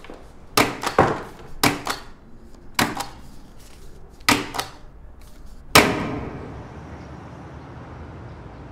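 Self-inking rubber stamp pressed down hard onto paper on a desk, about six sharp clacks over the first six seconds, the last the loudest with a short ringing tail. After that only a steady, even background noise remains.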